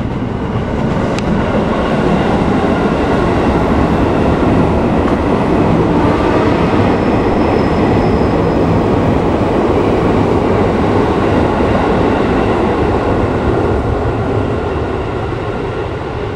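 Passenger train passing at speed: a continuous rumble of wheels on rails that builds to its loudest midway through and then slowly fades as the train moves away.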